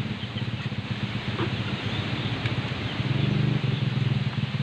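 A small engine running steadily at a low, even pulse, swelling slightly about three seconds in, against a haze of wind noise.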